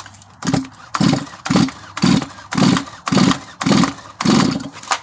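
Stihl chainsaw's two-stroke engine cranked over by its pull-cord recoil starter with a compression gauge in the spark-plug hole, eight quick pulls about half a second apart, the engine not firing. This is a compression test, and the gauge reads about 150 psi, high compression.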